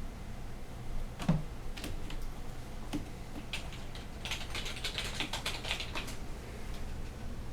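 Cats scuffling on a cat condo: a thump about a second in, then a quick run of light clicks and scratches as they grapple on it.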